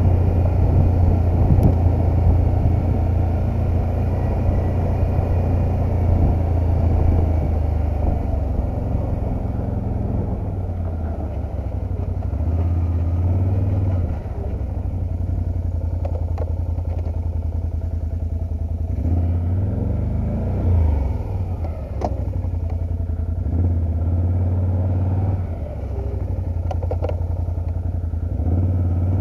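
Engine of a handlebar-steered motor vehicle running at low road speed on gravel: a steady low hum that eases off and picks up again a couple of times. A few sharp ticks sound over it.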